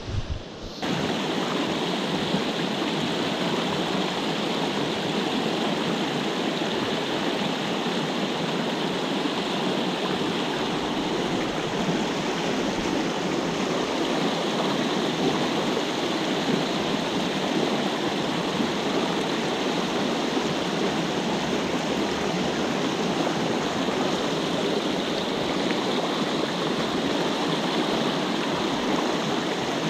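Small freestone mountain stream rushing steadily, running high, coming in abruptly about a second in.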